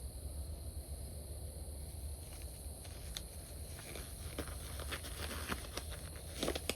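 Steady chirring of crickets, with a run of light clicks and knocks from about two seconds in, the loudest near the end.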